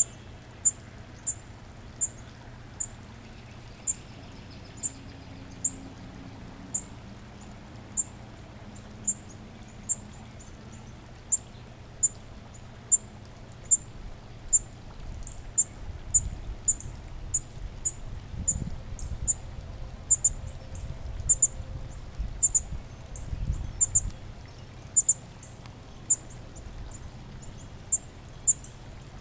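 Northern cardinal fledgling calling: short, sharp, very high chips, about one a second at first and coming faster from about halfway through. A low rumble sits underneath in the middle stretch.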